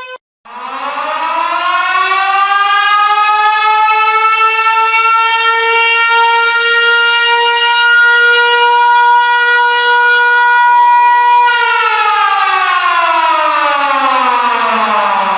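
A siren starting after a brief gap and rising in pitch over about three seconds. It holds one steady tone for about eight seconds, then falls slowly in pitch near the end.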